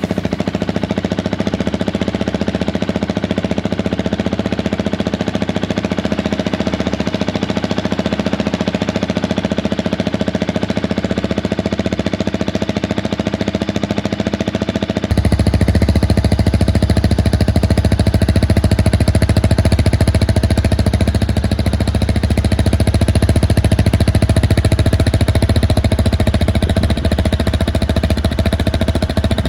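Husqvarna 701 Supermoto's big single-cylinder four-stroke engine idling steadily through a Remus aftermarket exhaust, with a fast even thumping beat. About halfway through the sound changes abruptly and becomes much fuller in the bass.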